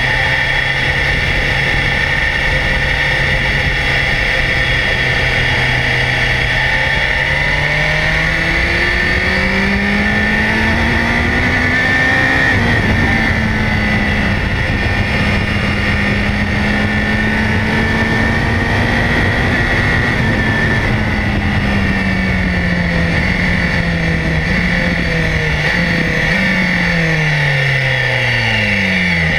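BMW S1000XR motorcycle's inline-four engine heard from an onboard camera with steady wind rush. The engine holds a steady pitch at first, climbs in revs, holds high through the middle, then drops in several steps near the end as the bike slows through the gears.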